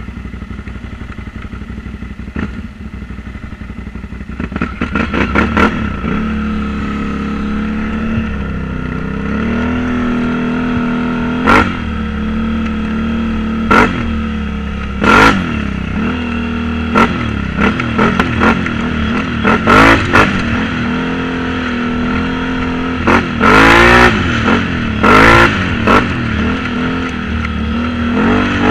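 Quad (ATV) engine running, quieter and steady for the first few seconds, then pulling away with the revs rising and falling as the throttle is worked. Short, sharp bursts of noise cut across the engine sound, the loudest a cluster about three quarters of the way through.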